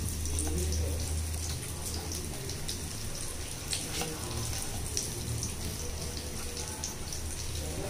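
Coated pomfret fish shallow-frying in hot mustard oil in a nonstick pan: a steady sizzle full of small crackles, over a low hum.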